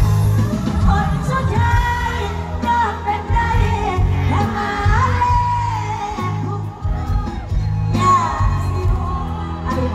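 Live Thai pop song played loud through a stage sound system: a woman singing the melody over a heavy, steady bass beat.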